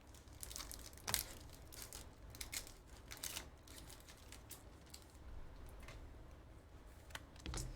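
Trading cards and foil pack wrappers being handled: irregular soft rustling, crinkling and small clicks.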